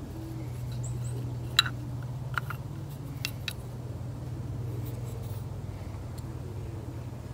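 A few light clicks and taps as the metal parts of a vintage outboard carburetor are handled, bunched between about one and a half and three and a half seconds in, over a steady low hum.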